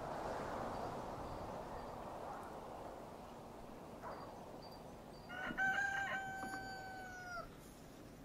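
A rooster crowing once, about five seconds in: a few short broken notes, then one long held note that drops slightly as it ends.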